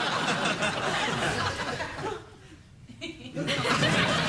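Studio audience laughing. The laughter dies down about two seconds in, then breaks out again about a second later.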